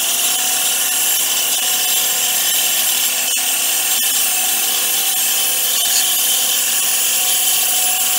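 A 14-inch bandsaw running steadily while its blade cuts a straight kerf into a board fed into it: an even, unbroken hiss of blade and cut, with a faint steady motor hum underneath.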